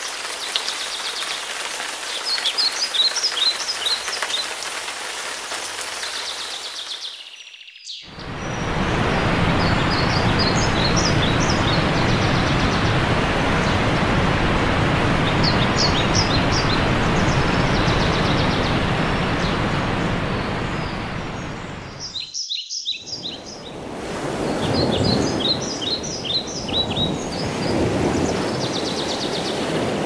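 Birdsong, quick high chirps in short runs, over a steady rushing noise. The sound drops out briefly twice, about eight seconds in and again past twenty-two seconds.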